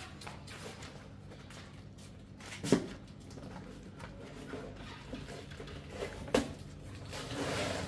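Two sharp knocks about four seconds apart as a plastic crate holding puppies is handled, over a steady low hum.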